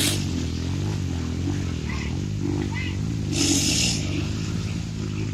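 Dirt bike engine running and revving, its note rising and falling unevenly, with a brief hiss of noise about three and a half seconds in.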